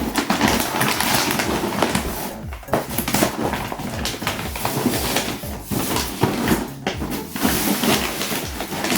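Packaging rustling and crinkling as a package is opened and its contents pulled out, with many small crackles and brief pauses.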